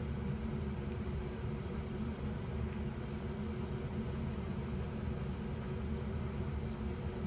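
A steady low rumble with a faint hum, unchanging throughout: a motor or engine running.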